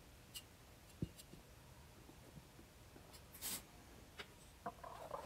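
Faint handling of steel grill parts on a welding table: light clicks and taps, a sharp knock about a second in, and a short hiss about three and a half seconds in.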